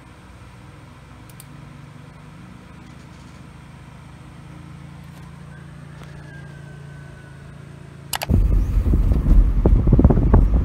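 A faint low hum, then about eight seconds in a sudden change to car driving noise heard from inside the cabin: a loud, uneven low rumble with wind buffeting the microphone.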